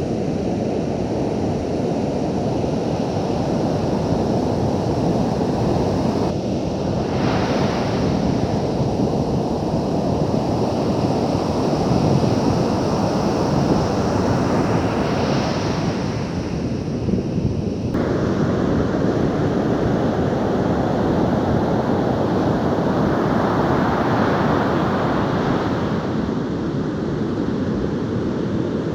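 Ocean surf: a steady rushing wash of waves, swelling as waves break about seven, fifteen and twenty-four seconds in, with wind on the microphone.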